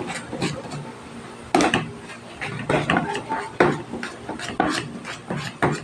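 Metal spoon scraping and knocking against a perforated stainless-steel colander while mashing boiled potatoes, in repeated irregular strokes about one or two a second, louder from about a second and a half in.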